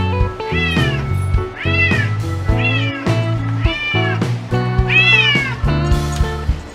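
Domestic cat meowing five times, about a second apart, each meow a short call that rises and then falls in pitch, over background music.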